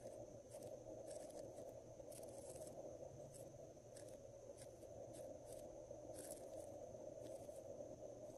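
Faint, irregular soft ticks and scrapes of a marker tip being drawn across the surface of white slime, over a steady low background hum.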